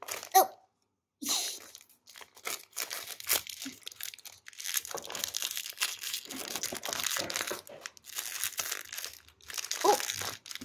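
Silver foil blind-bag wrapper of an L.O.L. Surprise toy crinkling as it is opened by hand, a steady run of crackly rustling with a short pause about a second in.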